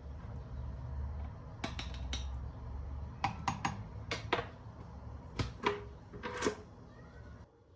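Cups and utensils clicking and clinking against each other in a quick, irregular run, over a low steady hum that stops near the end.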